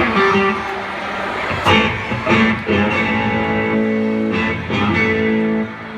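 Guitar strumming chords that ring on between strokes, with quick strums about two seconds in and again past four seconds.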